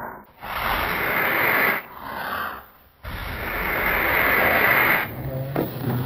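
Hissing noise in three stretches: one of about a second and a half, a short one near two seconds in, then one of about two seconds starting three seconds in.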